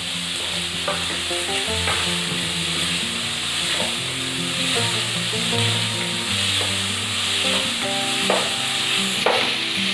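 Diced vegetables (peas, carrot, cauliflower, capsicum and tomato) sizzling steadily in oil in a non-stick kadhai while a spatula stirs them, with several sharp taps of the spatula against the pan.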